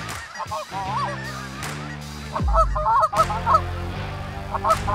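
Canada geese honking, a rapid flurry of calls about halfway through and another near the end, over background music with held low notes and a deep falling bass hit.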